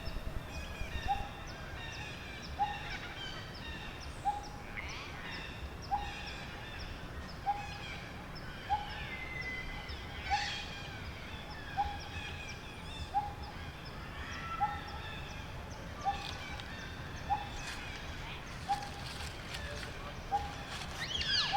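Forest birdsong: one bird repeats a short mid-pitched note about every second and a half, over a chorus of higher chirps and twitters from other birds.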